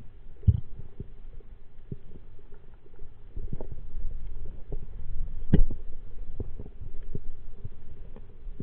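Muffled underwater sound through an action camera's waterproof housing: a low rumble with irregular soft knocks and clicks, the loudest about five and a half seconds in.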